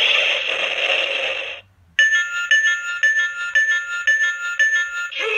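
An Ultraman Cosmos figure's built-in sound unit plays its story-mode effects. A dense electronic sound effect cuts off about a second and a half in; after a short pause comes a two-note electronic beeping, about twice a second, that sounds Ultraman's Color Timer warning. A new sound effect starts near the end.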